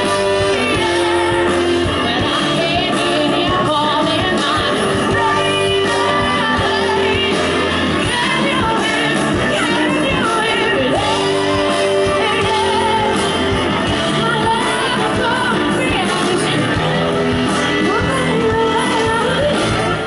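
Live band with a horn section, electric guitar, bass and drums playing a song while a female lead singer sings over it, steady and loud throughout.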